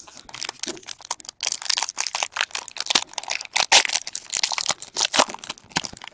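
Foil wrapper of a baseball card pack being torn open and crinkled in the hands: a fast, irregular run of crackles and rustles, louder from about a second and a half in.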